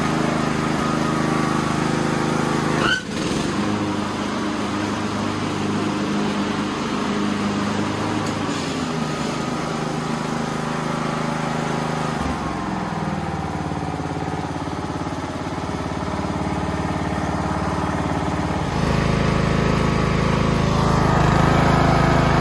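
Craftsman LT1000 lawn tractor engine running on a newly fitted replacement carburetor as the tractor is test-driven. There is a sharp clunk about three seconds in, the engine note changes around the middle, and it runs louder and deeper for the last few seconds.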